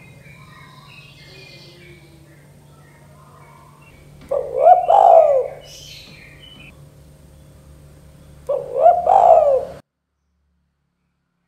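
Spotted dove (tekukur) cooing: two loud coo phrases about four seconds apart over faint high chirping. The audio cuts to silence near the end.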